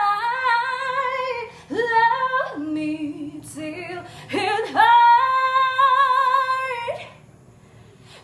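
A woman singing unaccompanied, her raw voice with no autotune, in long held notes with vibrato. The last note breaks off about seven seconds in.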